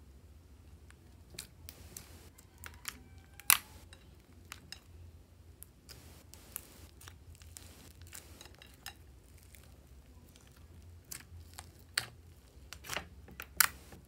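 Hands squishing and pressing clear slime into soft clay: scattered sticky clicks and wet pops, with a few sharper ones about three and a half seconds in and near the end.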